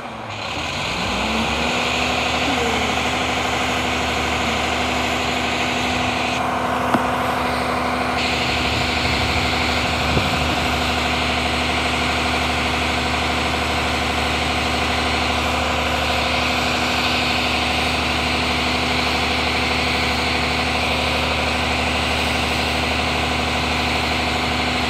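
Front-loader garbage truck's engine idling steadily, with two light knocks, about seven and ten seconds in.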